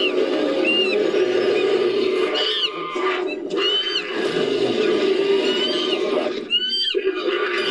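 Made-up 'Appalachian devil monkey' creature voice layered from baboon, chimpanzee and film ape and monster recordings: a continuous rough growl with short high calls that rise and fall in pitch, recurring over it.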